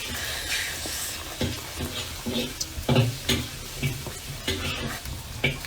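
Cooking in a wok: irregular knocks and scrapes of a spatula stirring, with a sizzle of frying.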